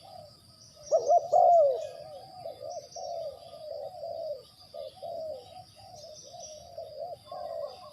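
Spotted dove cooing: a long run of short, rounded coos, loudest about a second in. A steady high-pitched tone and faint small-bird chirps sit behind it.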